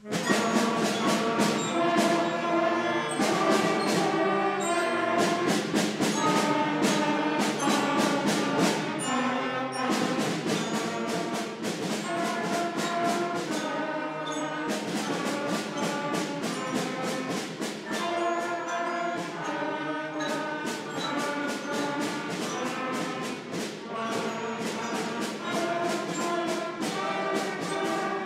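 A beginning fifth-grade concert band of flutes, clarinets, saxophones, trumpets and trombones plays a simple tune together over a steady percussion beat, starting on the conductor's downbeat.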